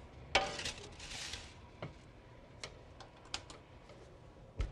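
Metal sheet pan clanking onto a wall-oven rack and scraping as it slides in, followed by a few light clicks, then the oven door shutting with a dull thud near the end.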